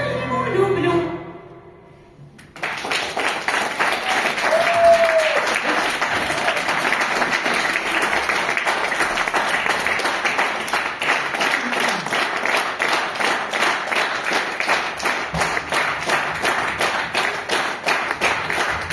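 A sung final note over a steady low drone dies away about a second in. After a short pause, audience applause breaks out and continues, with a single voice calling out briefly near the start of it.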